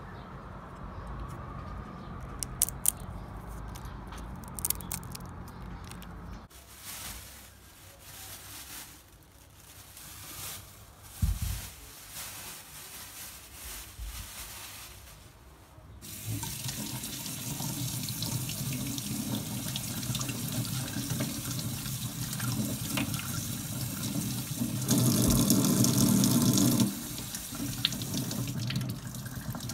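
Kitchen tap running into a stainless steel sink, with hands rinsing under the stream. The water starts about halfway through and runs louder for a couple of seconds near the end. Before it come a few sharp clicks and light knocks.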